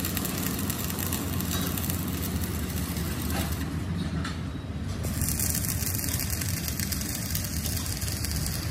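A steady low engine hum, running evenly without revving.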